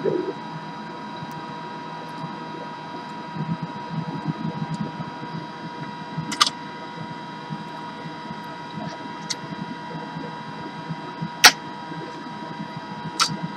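Steady running hum and whine of a workbench air-filter pump and hot-air rework station blowing, broken by a few sharp clicks, the loudest about two-thirds of the way through.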